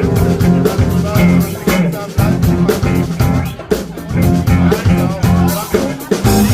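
Band music with electric guitar and drum kit and a steady beat.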